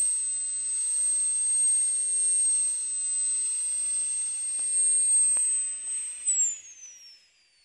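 Small gas-turbine engine of an RC helicopter running with a steady high whine, then shut down about six seconds in: the whine glides down in pitch as the turbine spools down and the noise fades away.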